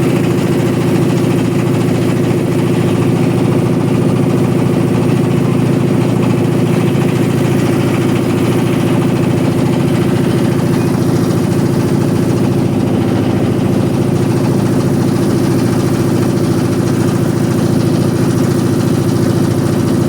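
A boat's engine running steadily while under way: a noisy, even hum that holds the same pitch and level throughout.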